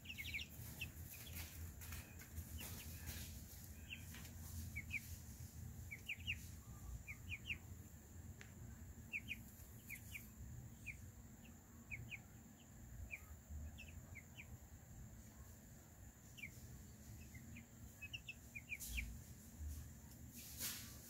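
Three-week-old chicks peeping softly: short, high, falling peeps, often in twos and threes, scattered throughout.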